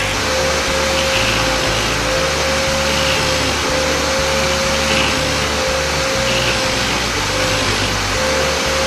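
Electric rotary sanding disc running steadily with a constant hum and hiss as the metal handle of an old cutter is held against it and sanded.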